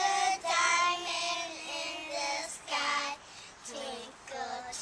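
Young girls singing a song together in long held notes, with short breaks between phrases.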